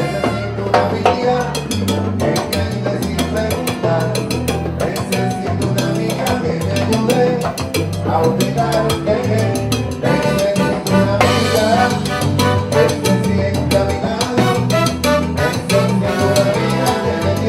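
Live Cuban salsa (timba) band playing: a steady bass line under drum kit and Latin percussion, with brass.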